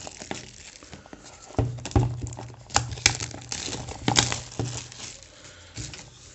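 Clear plastic wrap around a smartphone box crinkling as hands work at it to get the box open, with a few sharp knocks.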